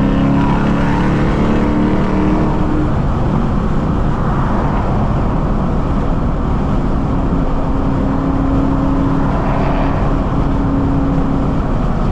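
2003 Mustang SVT Cobra's supercharged 4.6-litre V8 running while the car is driven, with steady road noise; the engine note shifts in pitch in the first few seconds.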